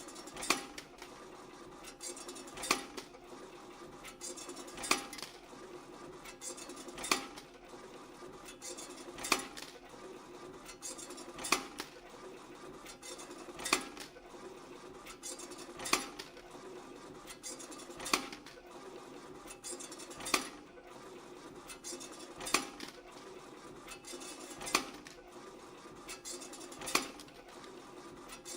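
YHM FMB-1 CNC wire bending machine running through its hook-forming cycle: a steady mechanical hum with light metallic ticking, and a sharp metal clack about every two seconds, once per part.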